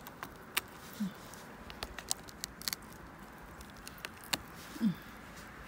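Scattered sharp clicks and snaps with light rustling, from twigs and forest litter being handled or stepped on while picking mushrooms. Two short low hums from the forager come about a second in and near the end.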